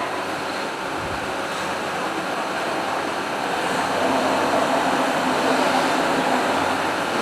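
Steady machinery noise on a metalworking factory floor, a dense even hiss and hum with no distinct strikes, growing somewhat louder about halfway through.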